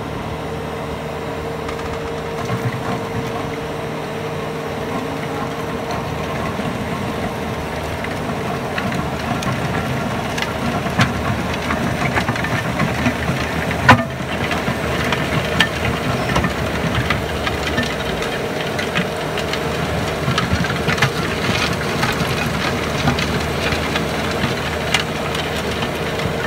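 Bobcat compact track loader's diesel engine running under load while its planer attachment grinds into the worn asphalt of a path, with frequent sharp clicks and knocks of broken stone and one loud knock about halfway.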